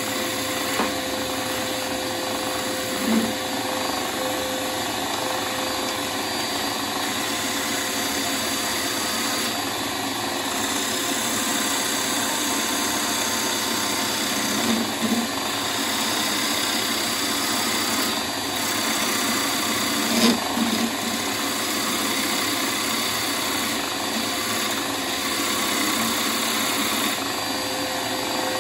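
Wood lathe running steadily while a bowl blank is worked on it, the spinning wood giving off a continuous hissing cutting noise. A few short, louder knocks stand out, about 3, 15 and 20 seconds in.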